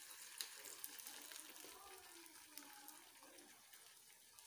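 Faint sizzle of beaten egg cooking over potato slices in a frying pan on low heat, with a few small pops in the first second.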